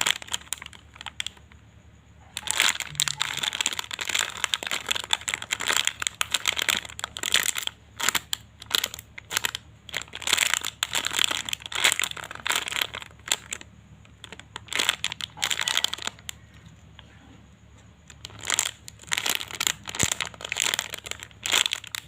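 Plastic wrapping crinkling in repeated bursts of a second or two, with short quiet gaps between, as a squishy toy is handled.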